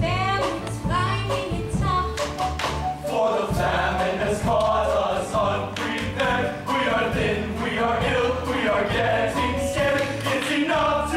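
Live musical-theatre number: a female lead and a chorus singing over instrumental accompaniment with a beat.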